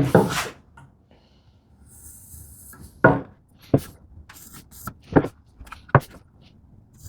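Wood being handled on a workbench: a clatter at the start, a brief scrape, then four sharp, separate wooden knocks spread over the following few seconds.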